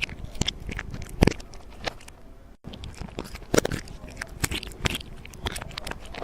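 Irregular crunching and crackling: a run of sharp, uneven clicks, broken by a very short gap about two and a half seconds in.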